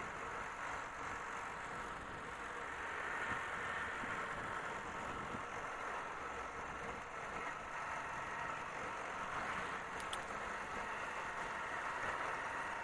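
Steady ride noise of a motorcycle heard from the rider's own camera: the engine running under way with wind and road hiss. A couple of faint clicks come about ten seconds in.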